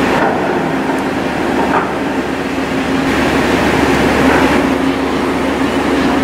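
A car ferry's engines and ventilation running: a steady machinery hum with a constant low tone under an even rushing noise.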